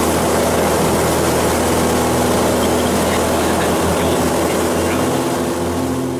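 Single-engine light aircraft's piston engine and propeller running steadily at high power during the takeoff roll on a dirt strip, heard loud from inside the cockpit.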